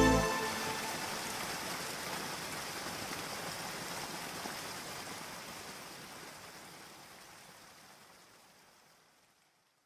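Rain sound effect: a steady hiss of falling rain that fades out slowly and is gone about nine seconds in.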